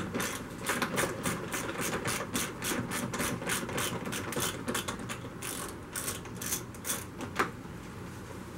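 Ratchet wrench with a 10 mm socket clicking rapidly, several clicks a second, as it turns a bolt holding the plastic shroud above the radiator; the clicking stops near the end.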